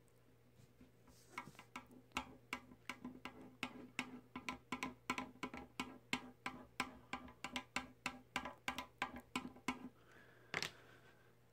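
Plastic burnishing tool rubbed rapidly back and forth over transfer tape on vinyl lettering on a painted metal casket: a quick, even run of short scraping strokes, about three to four a second, each with a brief squeaky ring. The strokes start about a second in and stop near the end, followed by one louder stroke.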